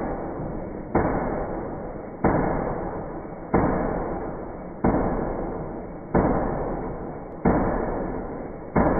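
Homemade magnet crankshaft engine, driven by a small 12 V electric motor, running with a sharp knock about every 1.3 seconds, each knock followed by a fading mechanical rumble, in an even cycle.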